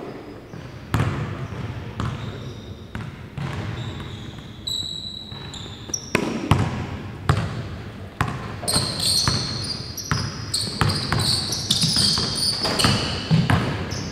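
Basketball dribbled on a hardwood gym floor, irregular bounces echoing in the hall, with basketball sneakers squeaking on the court as players cut, the squeaks coming thickest in the second half.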